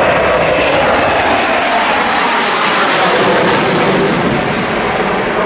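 Loud jet noise from an F/A-18 Hornet's twin F404 turbofan engines as the fighter manoeuvres overhead, swelling in the middle and easing slightly near the end.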